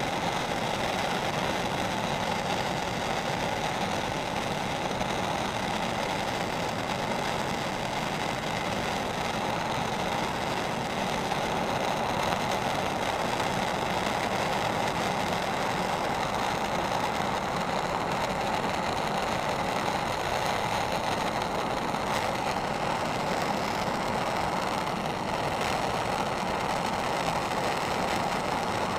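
Propane torch flame burning steadily against a soldered copper pipe joint, heating the old solder until it melts so the joint can be pulled apart.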